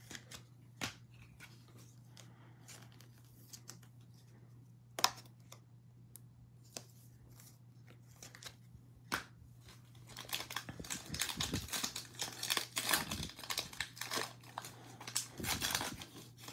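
A Panini Mosaic football card pack's foil wrapper being torn open and crinkled: dense crackling and tearing through the last six seconds or so. Before it there are only a few scattered light taps.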